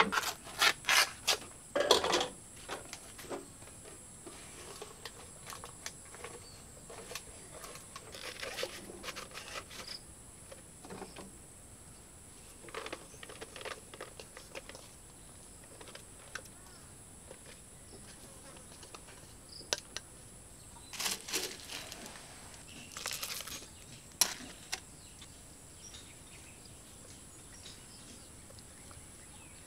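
Steady high buzz of insects in the background, with clay pots knocking and clinking as they are handled: a loud cluster of knocks in the first two seconds, and a few more about twenty seconds in.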